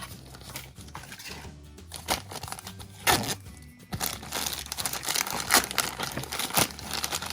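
Plastic packaging crinkling, with sharp clicks from small plastic toy pieces being handled and opened, getting busier from about two seconds in. Background music with a low bass line plays underneath.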